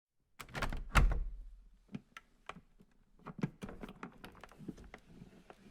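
Something vibrating against a hard surface and rattling: an irregular run of sharp knocks and clatters, loudest about a second in, then lighter, scattered rattles.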